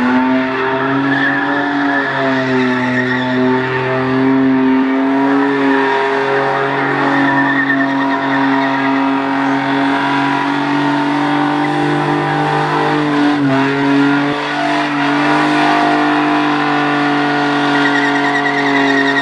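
Holden VN Commodore's 3.8-litre Buick V6 held at high revs during a burnout, with the spinning rear tyres squealing and skidding. The revs stay fairly steady, dipping briefly about 13 seconds in.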